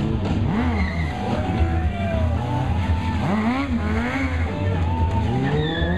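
Sport motorcycle engine revving up and down again and again, its pitch rising and falling in quick swells.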